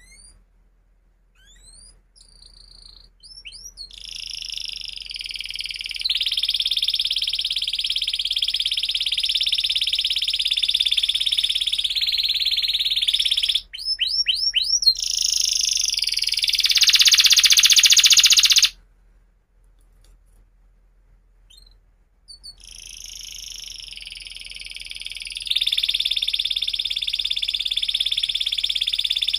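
Domestic canary singing: a few short chirps, then long, high rolling trills, a quick run of downward-sliding notes and a buzzy roll that breaks off suddenly past the middle. After a pause of a few seconds the trilled song starts again.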